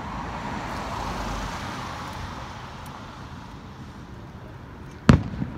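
An aerial firework shell bursts with one sharp, loud bang near the end, and a smaller crack follows just after it. Before that, a dull background rush swells and fades over the first couple of seconds.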